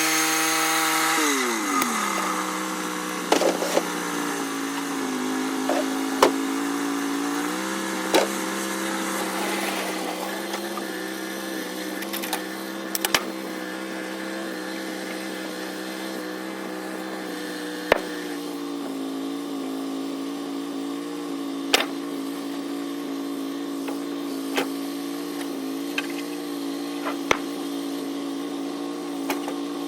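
Norwood portable sawmill's engine dropping from cutting speed to a steady idle about a second in, then idling, with its speed nudged up and back down once. Occasional sharp knocks and clanks sound over it.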